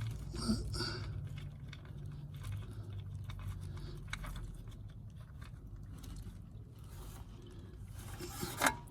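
Faint scattered clicks and scrapes of tools and metal parts being handled under a car, with a louder knock near the end, over a steady low hum.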